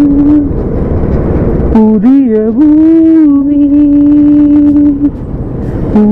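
A song with a singer holding long, wavering notes that slide between pitches, over road noise; about half a second in the voice breaks off for about a second and only a rushing noise is heard.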